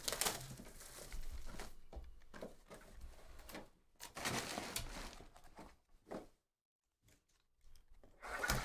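Plastic shrink-wrap crinkling and tearing as a sealed 2023 Absolute Football trading-card box is unwrapped. The cardboard mini boxes inside are handled and set down on the table with light knocks. The sound comes in several spells of rustling.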